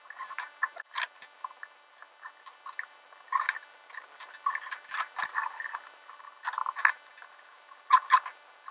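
Scattered short knocks, clicks and scrapes of wooden battens and hand tools being handled on a workbench as a wooden frame is put together. A few louder clatters come in quick pairs near the end.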